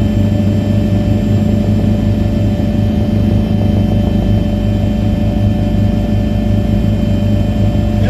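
Helicopter engine and rotor noise heard from aboard the aircraft: a steady, loud drone with constant low hum tones that does not change.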